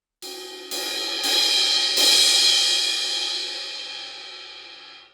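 An 18-inch Istanbul Agop Xist crash cymbal struck four times in quick succession, each hit louder than the last, then ringing out with a slowly fading wash before cutting off suddenly near the end.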